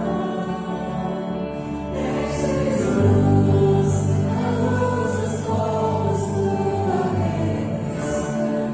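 Mixed choir singing a slow worship song in held notes, accompanied by a band of piano, drums, bass and guitars.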